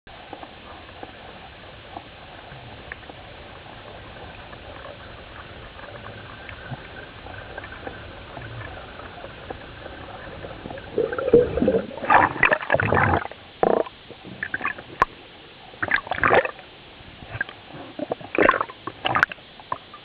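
Underwater recording of a freediver: a steady faint water hiss, then from about eleven seconds in, irregular loud gurgling bursts of air bubbles.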